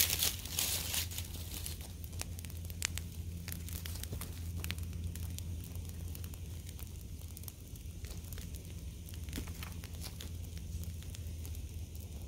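Open brush fire of dead branches and twigs crackling, with irregular sharp pops, busiest in the first second, over a steady low hum.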